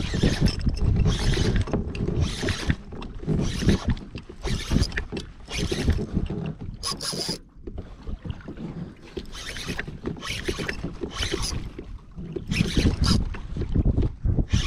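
Sea water slapping and sloshing against a fishing kayak's hull in surges about once a second, with a short sharp click about seven seconds in.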